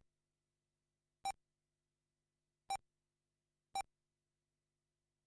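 RC race lap-timing system beeping as cars cross the timing line: four short, identical electronic beeps at uneven intervals, the first right at the start and the last just under four seconds in.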